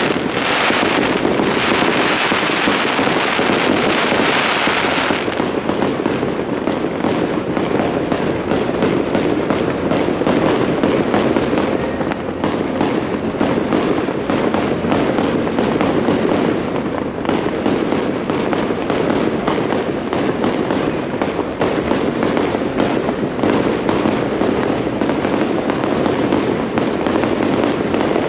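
Fireworks display: a dense, continuous run of rapid crackling and popping from aerial shells bursting. A bright hissing rush sits over it for about the first five seconds.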